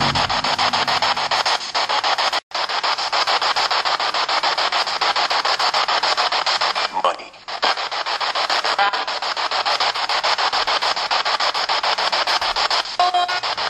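Steady, rapidly chopped static hiss, like a radio sweeping between stations, in which phrases such as 'I'm coming for you', 'Money', 'You'll cry' and 'More' are claimed to be heard as spirit voices. It cuts out for an instant about two and a half seconds in, dips around seven seconds, and carries brief tone fragments near seven and thirteen seconds.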